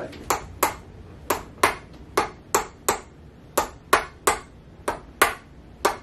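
A chiropractor's red mallet tapping at a patient's lower back in a run of sharp taps, about fifteen in all, often in quick pairs. It is a percussive adjustment of the joint.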